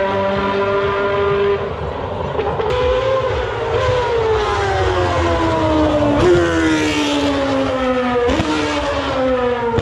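Race car engine running at high revs, its pitch falling slowly and jumping up sharply twice, about six and eight seconds in.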